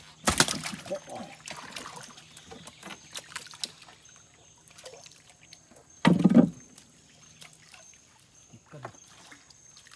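Splashing and knocking as a fishing net is worked from a small boat on the river: a burst of splashing near the start, scattered knocks, and a second heavy splash or thump about six seconds in.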